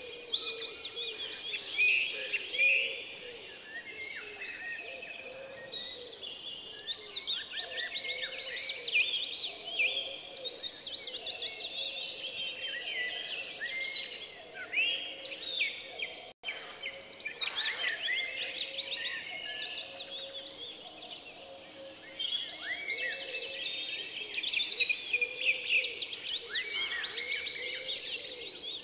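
Many songbirds chirping and trilling together in a dense, continuous chorus, loudest at the start, with a momentary break about sixteen seconds in.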